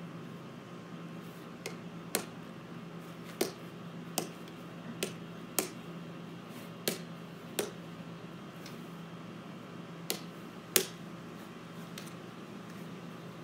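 A wiffle ball being tapped up repeatedly off a paddle: about a dozen sharp hollow taps, unevenly spaced roughly a second apart, one of the last ones loudest, then they stop.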